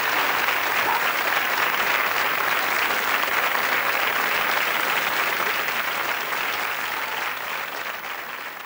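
Studio audience applauding, a dense steady clapping that dies away near the end.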